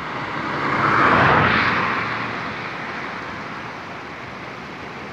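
A motor vehicle passing close by, its sound swelling to a peak about a second in and fading away over the next two seconds, over the steady rushing of a flooded river's rapids.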